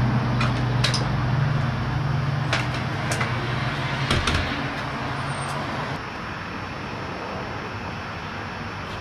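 A vehicle engine runs with a steady low hum, which stops about four seconds in. Several sharp clicks and a knock come from a screen door being worked around then. After that only a quieter, even outdoor background remains.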